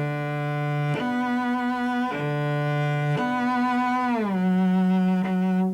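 Solo cello playing bowed sustained notes with a wide vibrato, a vibrato exercise. The notes alternate between a higher and a lower pitch about once a second, then slide down to a lower held note about four seconds in.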